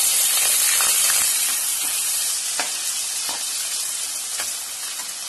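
Chopped onions sizzling in hot oil in a pressure cooker, stirred with a metal slotted spoon that scrapes and knocks against the pot several times. The sizzle is loudest at first and slowly fades.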